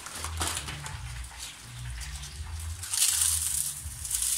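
Ridged Ruffles potato chips being crushed into crumbs between the hands, a dry crackling that is loudest about three seconds in.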